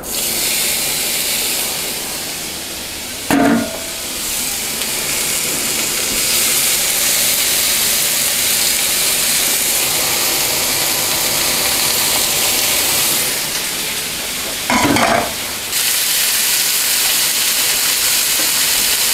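Minced beef sizzling as it fries in hot non-stick pans, stirred and broken up with a spatula: a steady hiss, broken twice by a short louder sound about three and fifteen seconds in.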